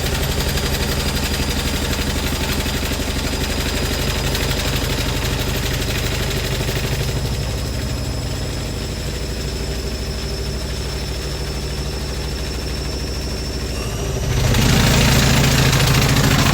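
Hoover DynamicNext DXC58W3 washing machine on a fast spin, its motor giving a steady high whine over a rapid rattling and knocking as the drum shakes the cabinet hard enough to move the machine across the floor. About fourteen seconds in the sound steps up, louder and heavier.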